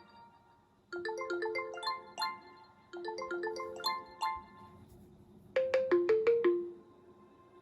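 OnePlus 6T stock ringtone playing from the phone's speaker: a short phrase of quick, bright notes stepping up in pitch, heard twice. About five and a half seconds in, a different ringtone begins with a fast run of sharper notes stepping down in pitch.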